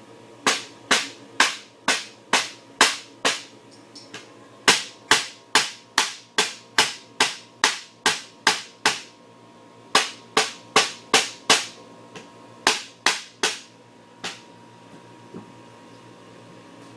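Hammer blows against a wooden chair frame, knocking its glued dowel joints apart: sharp strikes about two a second, in runs of several with short pauses between.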